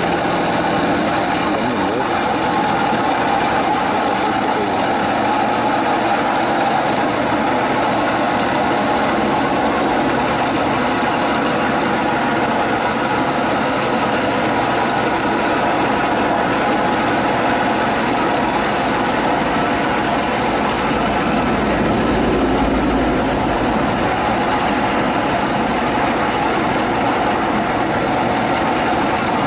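Small paddy tractor's engine running steadily under load as it drives a rotary water-channel cutting head through flooded rice-field mud.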